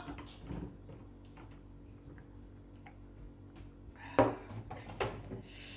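A glass tumbler set down on a wooden table with a sharp knock about four seconds in, then a smaller knock a second later, after a quiet stretch of faint small clicks.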